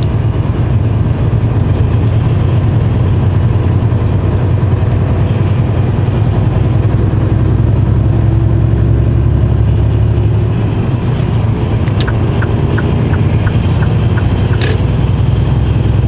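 Mercedes Actros truck heard from inside the cab while driving onto the motorway: a steady low engine drone with tyre and road noise, the engine pitch rising a little as it picks up speed. A short run of light, evenly spaced ticks comes in about twelve seconds in.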